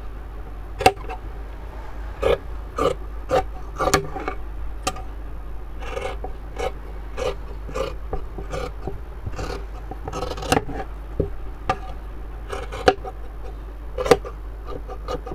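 Large steel tailor's scissors cutting through fabric: a string of irregular snips as the blades close, roughly one or two a second.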